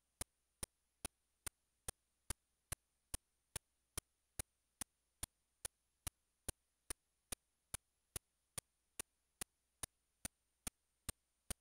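Sharp, identical clicks repeating evenly, about two and a half a second, over near silence, with a faint steady high-pitched whine.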